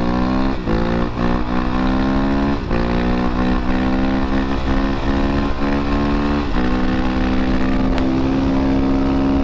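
Honda CRF450RL's 450 cc single-cylinder four-stroke engine under way, pulling up through the gears: the pitch climbs steadily and drops at each upshift, with clear shifts about a third and two-thirds of the way through.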